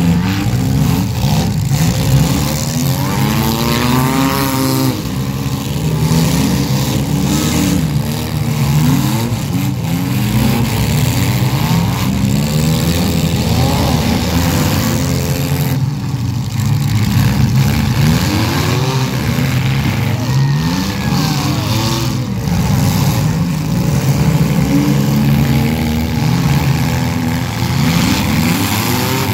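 Several demolition derby car engines revving hard at once, their pitches rising and falling over one another without a break.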